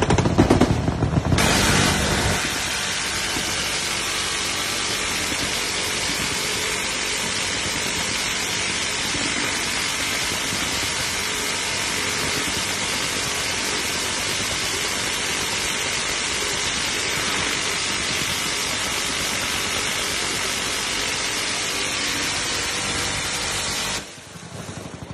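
Six-barrelled electric minigun firing one long continuous burst, its shots so fast they merge into a steady buzzing stream. It is louder and deeper for the first two seconds and stops about a second before the end.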